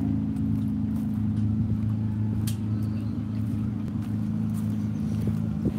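An engine running at a steady, unchanging speed: a low, even drone, with a few faint ticks over it.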